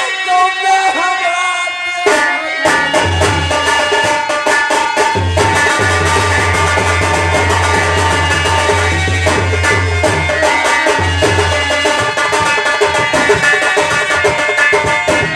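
Indian folk stage music: a bending melody line, then about two and a half seconds in, fast hand-drum playing comes in over a steady low drone and continues.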